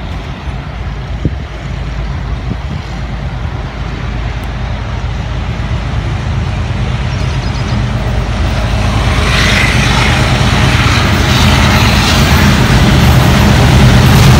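Pakistan Railways HBU-20 diesel-electric locomotive approaching: a steady low engine drone that grows steadily louder, with wheel and rail noise building in over the last five seconds.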